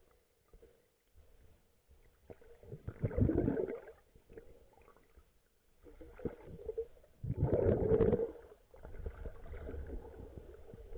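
Muffled water sloshing and gurgling around an underwater camera, coming in surges of about a second, the two loudest about three and seven and a half seconds in.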